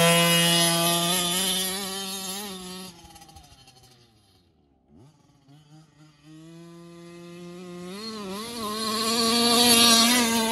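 Losi 5T gas RC truck's small two-stroke engine running at high revs as the truck drives off, fading to near silence about four seconds in. It comes back faintly and grows loud again, the revs rising and falling, as the truck returns close near the end.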